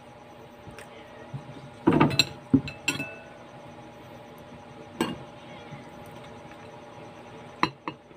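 A metal spoon clinking against white ceramic bowls as they are handled. There is a quick cluster of knocks and clinks about two seconds in, a single clink midway, and two more near the end.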